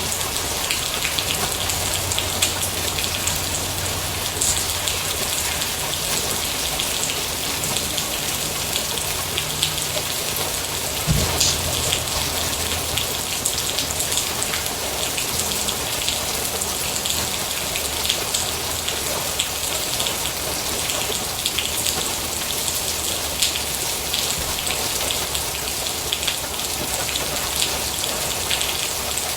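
Steady rain falling on a hard surface, a dense even patter with individual close drops ticking through it. A single brief low thump sounds about a third of the way in.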